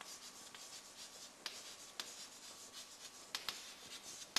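Chalk writing on a chalkboard: faint scratching strokes with a few short, sharp taps as the chalk meets the board.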